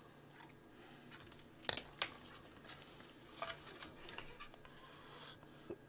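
Faint clicks and rustles of meter probes, test leads and a small metal box being handled on a workbench, with one sharper click about a second and a half in, over a faint low hum.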